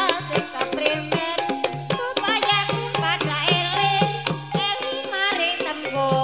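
Javanese gamelan-style music accompanying an ebeg horse dance: a fast, even beat of struck notes and percussion under a wavering high melodic line, with steady low sustained notes.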